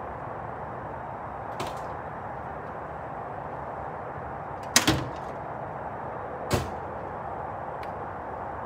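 Several short, sharp knocks or clacks, the loudest a quick double knock about five seconds in and another about a second and a half later, over a steady low rumble and hiss.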